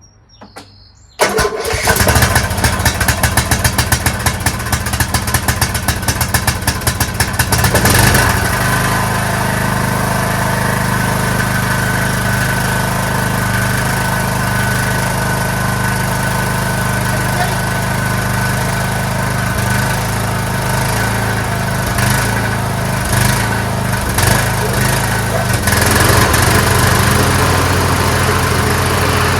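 Craftsman LT2500 lawn tractor engine started on the choke, catching about a second in and running rough and pulsing for several seconds before settling into a steady run. About three-quarters of the way through, its note shifts and it runs a little louder.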